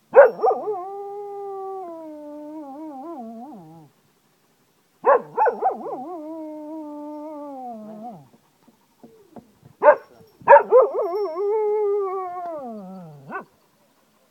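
Cocker spaniel howling like a wolf: three long howls, each starting sharply, held at a steady pitch and sliding down at the end, with a few short yelps before the third.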